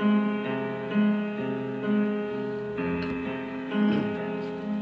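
Background piano music: a slow melody, with a new note or chord struck about once a second.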